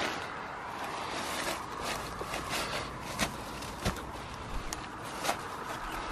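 Footsteps pushing through dry leaves and tangled undergrowth, the vegetation rustling steadily. A few sharp snaps of twigs breaking underfoot come in the second half.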